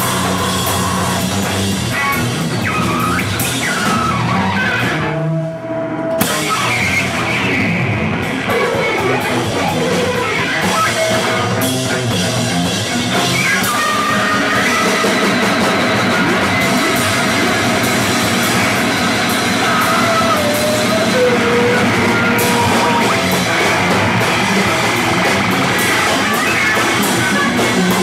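A live noise band playing loud, dense, distorted music, with sliding pitched tones wandering over the wall of sound. It thins out briefly about five seconds in.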